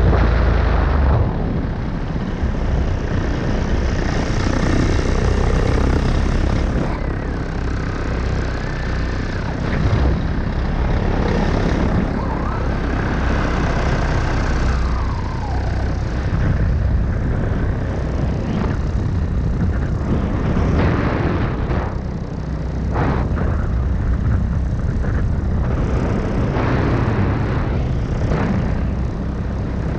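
Wind rushing and buffeting over the camera microphone in flight under a paraglider, a steady deep rumble that swells and fades in gusts.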